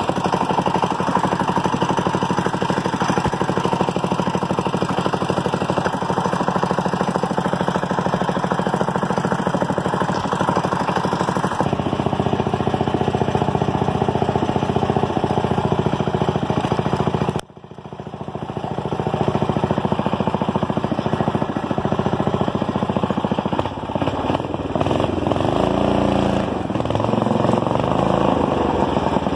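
Manco go-kart's small engine running. About two-thirds through it drops out sharply, then builds back up, and near the end its pitch swings down and up.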